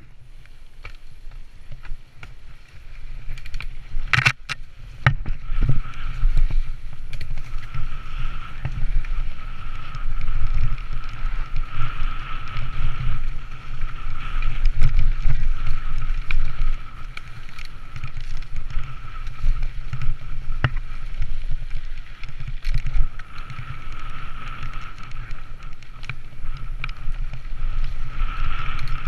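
Mountain bike riding fast down a rough dirt trail, heard from a camera on the bike or rider: a steady rumble of tyres and rattle of the bike over the ground, with wind on the microphone and a steady high hum. A few sharp knocks from bumps come through, the loudest about four seconds in. The sound is quieter for the first few seconds.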